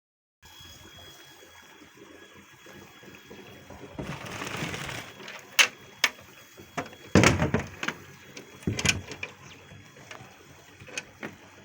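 Water splashing and pouring, with a rush about four seconds in and several sharp knocks after it.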